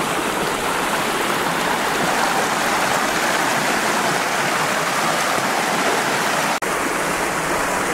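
Knee-deep rocky creek rushing and splashing over stones in small rapids: a steady rush of water, with a split-second break about two-thirds of the way through.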